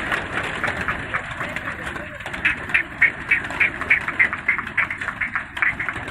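A flock of pigeons flapping their wings as they are driven up to take off. From about two and a half seconds in there is a fast, regular run of short sharp sounds, about three a second.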